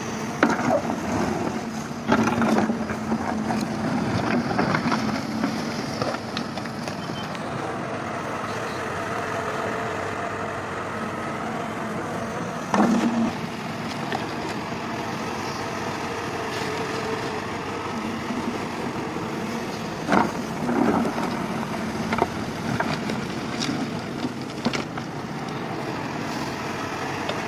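Hyundai 140 hydraulic excavator running steadily under load while digging and lifting mud. A few louder short knocks and scrapes, likely from the bucket, stand out near the start, about halfway through and again a few seconds later.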